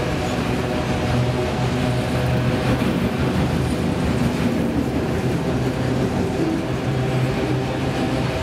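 Enclosed autorack freight cars rolling past at trackside: a steady rumble and rattle of steel wheels on the rails and the car bodies, with a steady low hum underneath.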